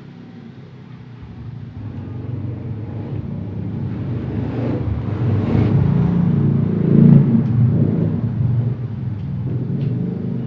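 A motor vehicle approaching and passing close by: a low engine rumble that grows steadily louder, is loudest about seven seconds in, then eases off a little.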